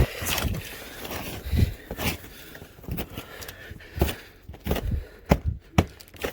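Boots kicking and stomping at packed snow: a dozen or so irregular thumps and scrapes, the sharpest cluster a little after five seconds in.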